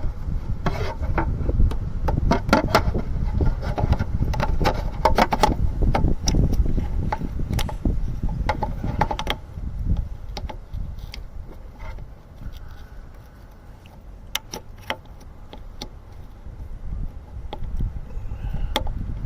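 Hands fumbling a fuel door lock actuator into its mounting hole by feel: rubbing and handling noise with many small scattered clicks and knocks, busiest in the first half and quieter after the middle.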